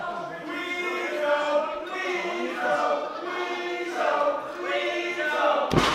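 Wrestling crowd chanting together in a hall, many voices in unison. A single heavy thump comes near the end.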